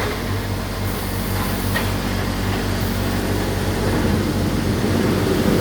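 CNC panel saw running with a steady machine hum and a faint hiss over it.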